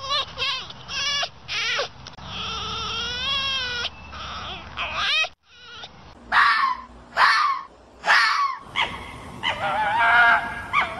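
Ring-tailed lemur calls: a string of short, high, wavering cries, with one longer wavering call about two to four seconds in. After a brief break just past five seconds, a few sharp, falling yelps follow, then a denser run of calls near the end.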